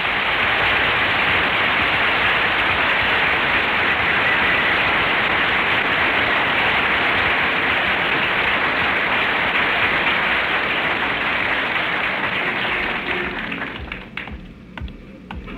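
Studio audience applauding, heard through a narrow-band old radio recording. The applause is steady, then dies away over the last few seconds into a few scattered claps.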